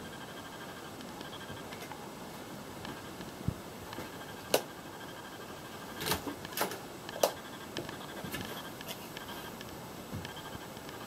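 Steady hum of the ventilation and machinery in a small ferry cabin. Several sharp clicks and knocks come between about four and seven seconds in.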